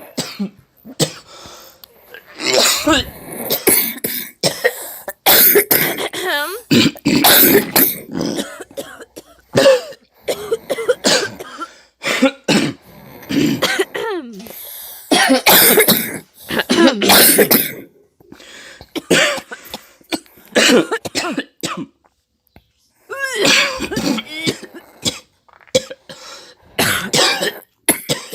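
A person sick with a cough, coughing over and over in fits and clearing the throat, with a short pause about three quarters of the way through.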